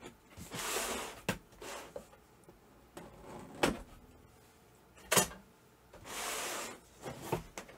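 Cardboard box being opened: two scraping, rustling passes of packing tape and cardboard, under a second in and about six seconds in, with a few sharp knocks and clicks of the box being handled in between.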